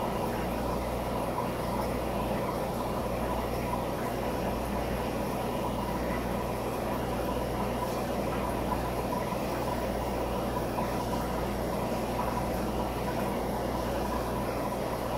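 Aquarium equipment running: a steady low hum with a thin high whine over an even wash of noise, with no strokes or breaks.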